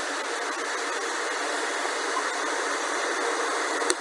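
Steady, even hiss of background noise, with one sharp click near the end.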